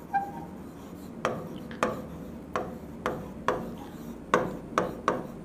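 A stylus writing on an interactive whiteboard screen: irregular sharp taps, roughly two a second, with faint scratching between them as words are handwritten.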